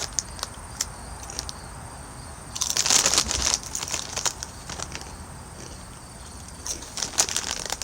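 Crinkling and crunching from a bag of spicy tortilla chips being handled and eaten, with one longer, louder rustle about three seconds in and scattered small clicks near the end.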